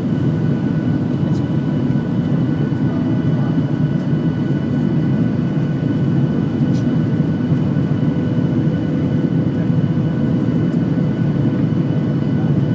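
Jet airliner engines heard from inside the passenger cabin during takeoff: a loud, steady rush with several steady whining tones above it.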